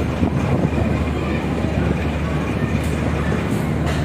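Steady low engine drone from small motorboats, with indistinct voices mixed in.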